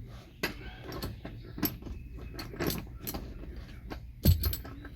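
Irregular metallic clinks and knocks of an anchor bolt and hand tools being handled while bolting an anchor down through the car's floor carpet, with one heavier knock near the end.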